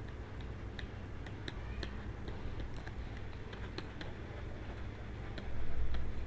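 Faint, irregular ticks and taps of a stylus writing on a pen tablet, over a steady low hum. A brief, louder low rumble comes near the end.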